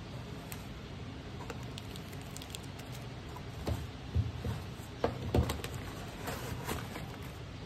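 Cosmetic products and packaging being handled in a cardboard box: a few soft knocks and bumps from about halfway through as items are set down and a carton is lifted out, then light crinkling of cardboard and packaging near the end, over a steady low hum.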